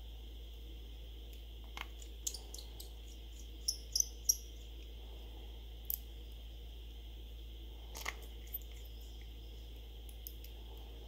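Precision screwdriver working small screws in a smartphone's frame: scattered light metallic clicks and ticks, a quick cluster about four seconds in.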